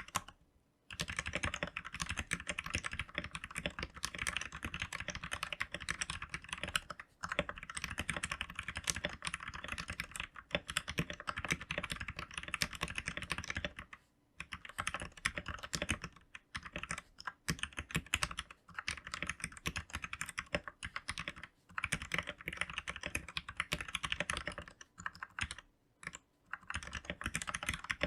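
Fast typing on a Royal Kludge RK71 71-key mechanical keyboard: a dense stream of key clicks, broken by a few short pauses.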